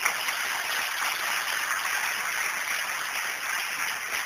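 Audience applauding: dense, even clapping that eases off slightly near the end.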